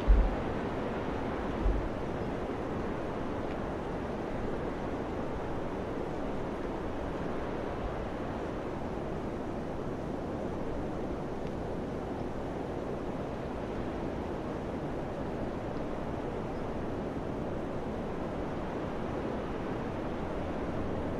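Wind blowing steadily, an even rushing noise. Twice in the first two seconds a low gust thumps on the microphone.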